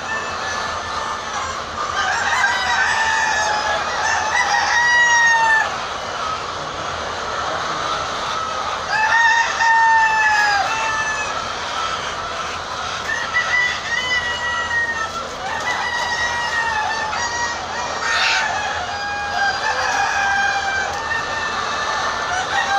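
A flock of laying hens calling and clucking continuously, with many drawn-out calls overlapping one another.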